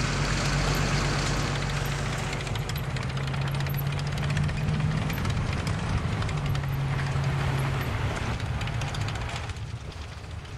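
Armoured military vehicle's engine running with a steady low drone as it moves along, dropping away quieter near the end.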